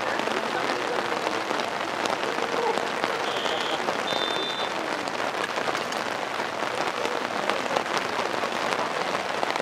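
Steady rain pattering, a dense hiss of fine drops. Faint distant voices sit beneath it, and two short, faint, high whistle tones come a little after the middle.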